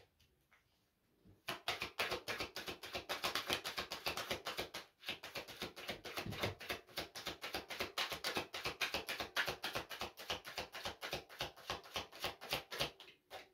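A deck of oracle cards being shuffled by hand, a fast, dense patter of cards slapping and sliding against each other. It starts about a second and a half in, pauses briefly near the five-second mark, then runs on until just before the end.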